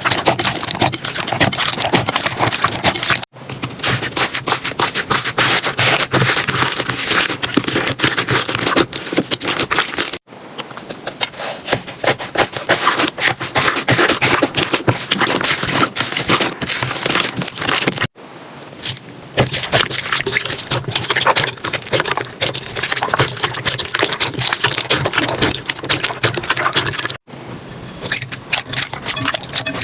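Slime being squeezed and pressed close to the microphone, giving dense, rapid crackling and popping clicks. The sound breaks off briefly four times at cuts between clips.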